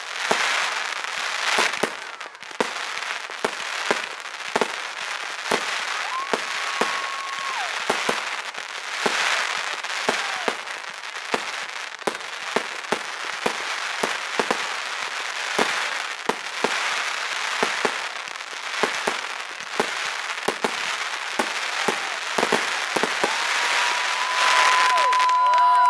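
Fireworks display: a dense, irregular series of bangs with crackling bursts. A steady high whistle is heard twice, once briefly about six seconds in and again near the end.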